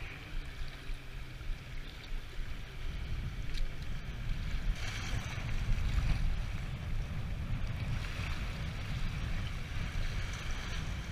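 Wind buffeting the microphone with a low rumble, over waves washing and splashing across a half-submerged pier, the water swelling louder about halfway through.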